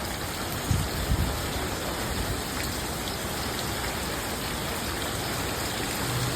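Heavy hurricane rain pouring down steadily, with wind, and two low thumps about a second in.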